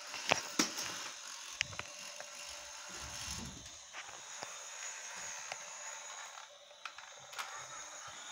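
Battery-operated toy car's small electric motor and plastic gears whirring steadily as it transforms and rolls on a tile floor, with scattered sharp plastic clicks.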